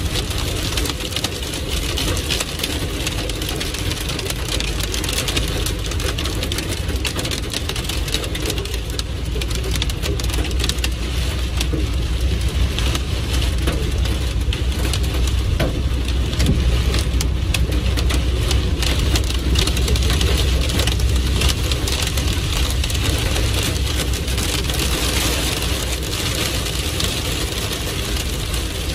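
Heavy storm rain with hail drumming on a car's roof and windshield, heard from inside the cabin as a dense patter of impacts over the low drone of the car driving on a wet road. The low rumble swells a little through the middle.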